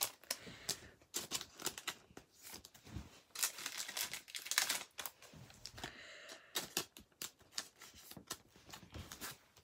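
Trading cards and their plastic packaging being handled by hand: an uneven run of quick clicks, crinkles and rustles.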